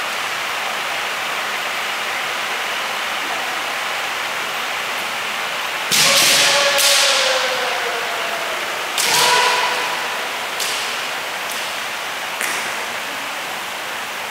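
Kendo sparring: a loud bamboo shinai strike with a drawn-out shouted kiai that falls in pitch about six seconds in, and another strike and shout about three seconds later. After them come three lighter, sharp shinai clacks, all over a steady background hiss.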